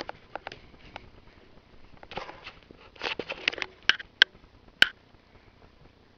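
A rabbit eating chopped vegetables from a ceramic bowl: short bursts of rustling and crunching, then a few sharp clicks against the bowl.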